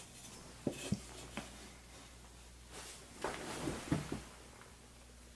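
A few light clicks and taps of a small metal lock cylinder being handled: three single clicks in the first second and a half, then a cluster of small knocks between about three and four seconds in.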